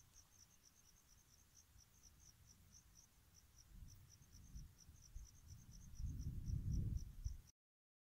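Faint, steady chirping of crickets, short high chirps about four a second. Under it is a low rumble of wind on the microphone that grows louder toward the end; both cut off abruptly near the end.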